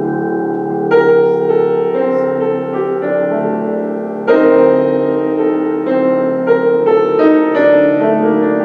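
Piano playing a slow passage of sustained chords and single melody notes, with fuller chords struck about a second in and again a little past four seconds.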